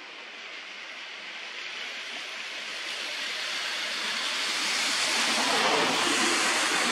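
A steady rushing noise that swells louder over the first five seconds or so, then holds.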